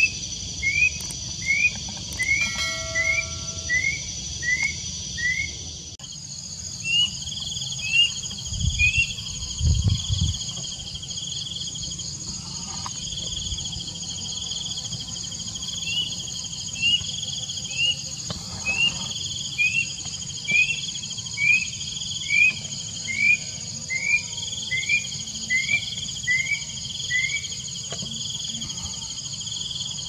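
Plaintive cuckoo (Cacomantis merulinus) singing in runs of short, rising whistles, about two a second: one run near the start, a brief one about seven seconds in, and a long run through the second half. A steady, high insect chorus with a slow pulse runs underneath.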